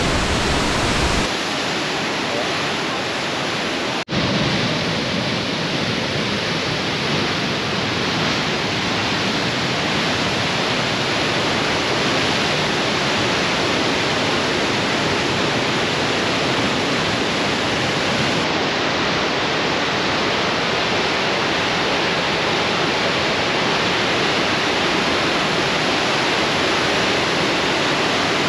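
Waterfall: a steady, dense rush of falling water, broken by a sudden split-second dropout about four seconds in.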